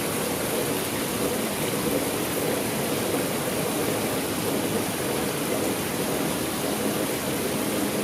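Water running and splashing down a boulder rock-wall waterfall, a steady even rush; the waterfall is at a reduced flow. A faint low hum joins near the end.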